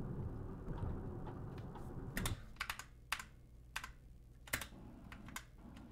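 Computer keyboard keys clicking: about eight sharp, irregularly spaced clicks starting about two seconds in, over a low rumble that fades after the first two seconds.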